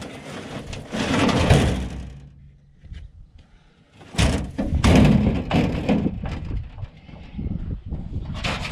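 Halves of a sawn-apart aluminum boat hull being flipped over and shifted on dirt: hollow metal clunks and scraping. The sound comes in spells, with a short lull about a third of the way in and a louder clatter starting just before halfway.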